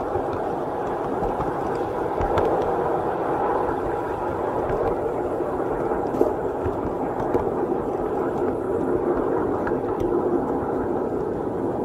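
Small ride-on backyard railroad train running along its track: a steady rolling rumble of the train in motion, with a few faint clicks.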